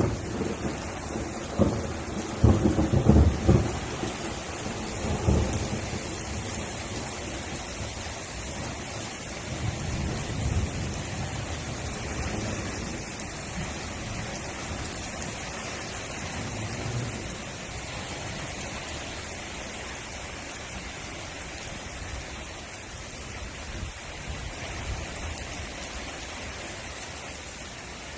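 Thunder rumbling over steady rain. The strongest rolls come a few seconds in, then weaker rumbles follow and die away while the rain goes on.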